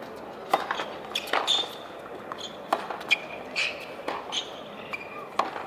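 A tennis serve and rally on a hard court: about six sharp pops of the ball off the rackets and the court, spaced one to one and a half seconds apart, with short squeaks in between.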